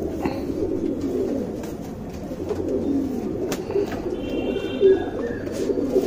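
Domestic pigeons cooing steadily, several voices overlapping, with a few sharp clicks.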